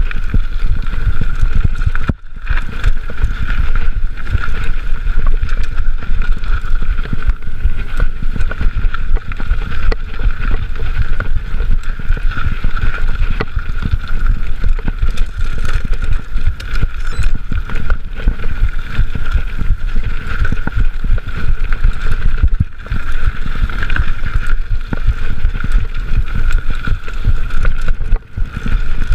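Mountain bike ridden over a dirt trail, heard from a chest-mounted GoPro: wind buffeting the microphone over tyre and trail rumble, with a steady high tone underneath. The level drops briefly and suddenly about two seconds in and twice more later on.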